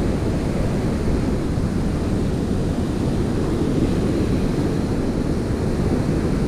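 Wind buffeting the microphone in a steady low rumble, over the wash of small waves breaking on a sandy beach.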